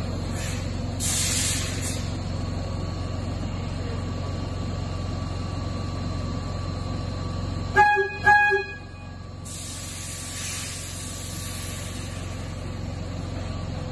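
A SEPTA subway car's horn gives two short toots about eight seconds in, over a steady hum and hiss from the car.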